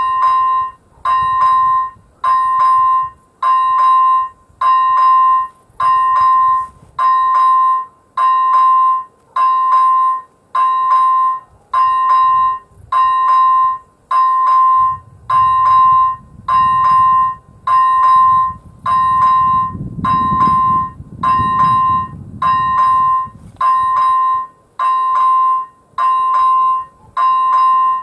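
Electronic warning bell of an AŽD 97 level-crossing signal (first-generation electronic bell) starting up and dinging steadily at about one ding a second, signalling that the crossing is closing for an approaching train. A low rumble runs underneath for several seconds midway.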